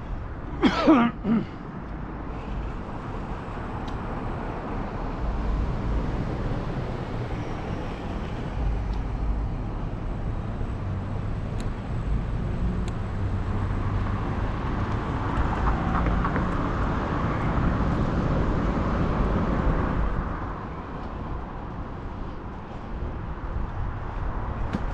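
Road traffic heard from a moving bicycle, with wind rumbling on the microphone; a vehicle goes past, loudest between about 15 and 20 seconds in. A short vocal sound comes about a second in.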